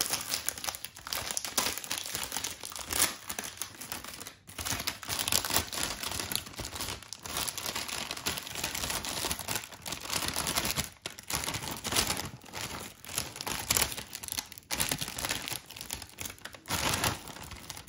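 Metallised plastic snack packet crinkling and rustling as hands crumple and pull it open, with a few brief pauses.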